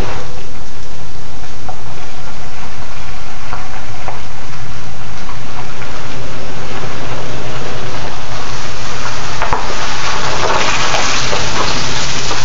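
Loud steady hiss of rain and wet pavement, with a low hum underneath. Over the last four seconds the hiss swells as an Infiniti sedan drives up close, its tyres hissing through the water.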